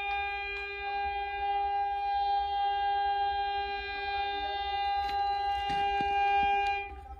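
Railway train horn sounding one long, steady blast at a single pitch, cutting off sharply near the end.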